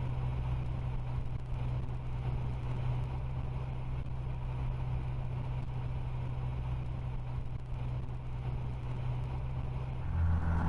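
Steady cabin drone of a Socata Rallye MS880B's four-cylinder piston engine and propeller during a steep approach to land. The low hum grows louder about ten seconds in.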